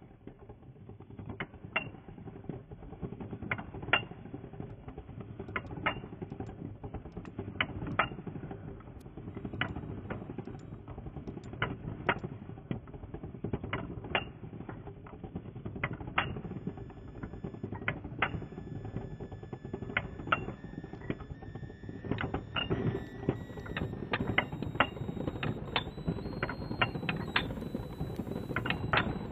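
Pencil sharpener grinding a pencil: a continuous low scraping with irregular sharp clicks, which come more often near the end.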